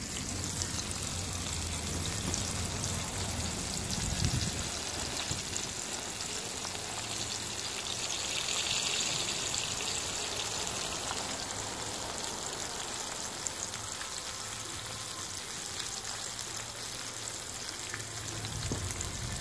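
Flour-dredged porgies sizzling steadily in hot oil, a constant crackle of bubbling fat. It is the frying 'song' that shows the fish is frying right.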